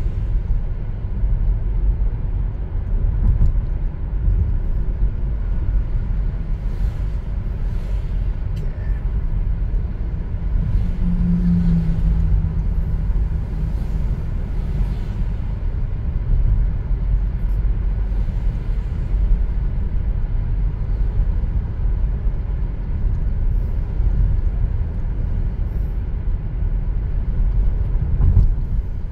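Car driving along, heard from inside the cabin: a steady low rumble of engine and tyre noise on the road, with a brief low hum about eleven seconds in.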